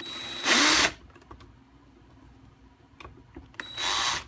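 Two short, loud, noisy bursts about three seconds apart, each with a thin steady whine inside it, as a screwdriver backs a screw out of the printer's plastic case. Faint ticks of handling fall between the two bursts.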